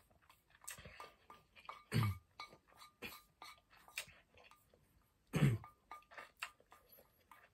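Wooden chopsticks clicking and scraping against a stainless steel bowl of noodles, some strokes leaving a faint metallic ring, as someone eats. Twice, about two seconds in and again past five seconds, a louder throaty mouth noise from the eater.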